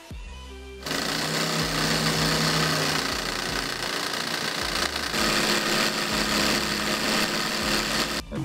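Homemade V-twin magnet model engine running, its small DC electric motor turning a ball-bearing crank that drives two syringe pistons, giving a fast, steady mechanical rattle. It starts up about a second in and cuts off abruptly near the end.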